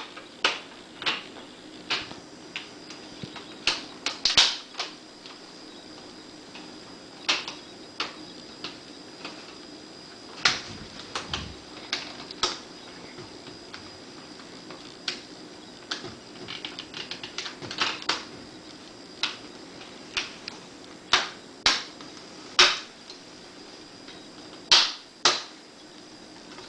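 Plastic clips of a Toshiba Satellite L655 laptop's screen bezel snapping loose as the bezel is pried away from the display lid: sharp, irregular clicks every second or so, some in quick clusters.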